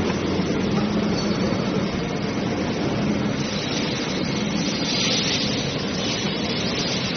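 Steady drone and hiss of a 250-ton rubber injection moulding machine running, with a low hum underneath; a brighter hiss rises briefly about five seconds in.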